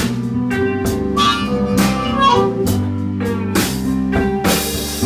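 Live blues band playing an instrumental passage between sung verses, with held notes over drum hits and a cymbal crash near the end.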